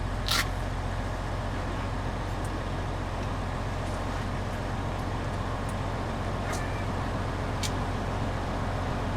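Diesel engine idling steadily with a low, even hum. A sharp click sounds about half a second in.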